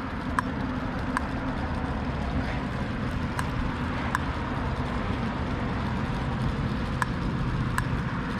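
Steady rumble of road traffic, broken by pairs of sharp ticks that come about every three seconds.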